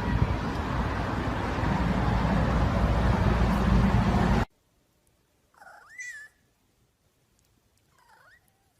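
A loud, even rushing noise that cuts off suddenly about four and a half seconds in, then a cat meows twice: one meow about six seconds in and a shorter, fainter one near the end.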